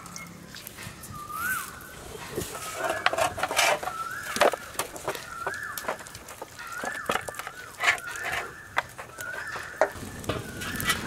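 Chicken clucking over and over, a rising-then-falling call about once a second, with scattered sharp clicks and knocks.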